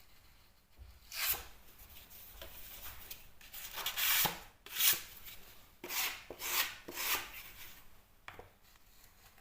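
A hand tool scraping or rubbing over a plastered wall in a series of irregular strokes, the loudest clustered in the middle.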